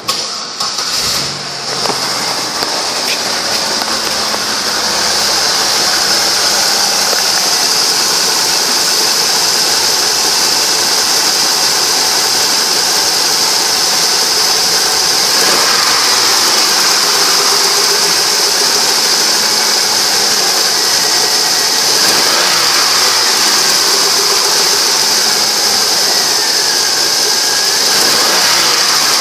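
2003 Buick Century's 3.1-litre V6 engine starting about a second in, then idling steadily, with a steady high hiss over the running engine.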